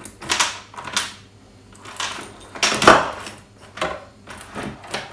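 Steel saw chain clinking and rattling as it is worked loose and lifted off a cordless chainsaw's bar and drive sprocket. Irregular clicks come several times, with the loudest rattle about three seconds in.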